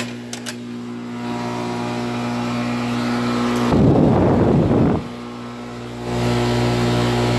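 Two NuTone central air conditioner condensing units running with their Copeland scroll compressors and fans: a steady hum with a loud rough rumble lasting about a second in the middle. The hum grows louder about six seconds in.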